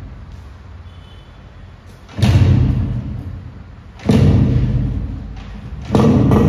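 Background music made of deep booming drum hits, one about every two seconds, each dying away slowly.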